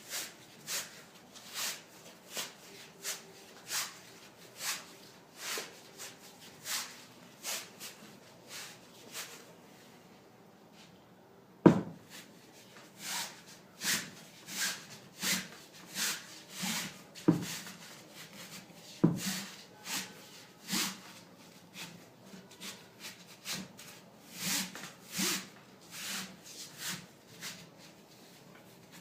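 Rubber-gripped Poleskin sleeve being pulled down a Reach-iT Mini pole by hand, a short rubbing swish with each pull, about one a second at first, then quicker after a brief pause. Three sharper knocks come in the middle stretch.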